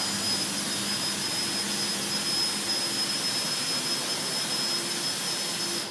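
Electric winch of a Rhino roof-rack boat loader running steadily, hauling an aluminium dinghy up onto the roof racks: a steady hiss with a thin high whine and a faint low hum.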